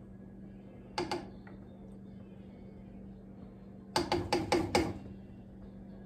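Kitchen serving utensils knocking against plates: a quick double clack about a second in, then a rapid run of about six clacks near four seconds, over a steady low hum.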